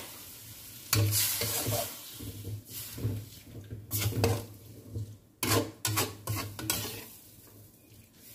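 Perforated steel spatula scraping and knocking around a steel kadai as chicken and carrots in a watery curry gravy are stirred, with a sizzle from the pan underneath. The strokes come irregularly, about a dozen of them, and thin out near the end.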